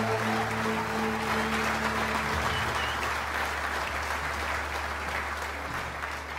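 Concert audience applauding, slowly fading, with low steady tones held on under the clapping.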